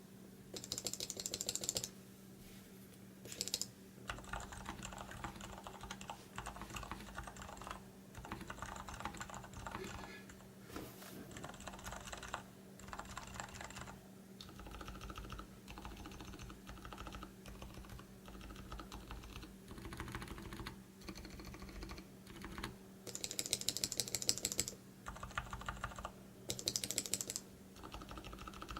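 Typing on a Durgod Taurus K320 mechanical keyboard fitted with modded Gateron Silent Brown switches: stretches of rapid, muted keystrokes, with a few louder, sharper-clacking bursts in between.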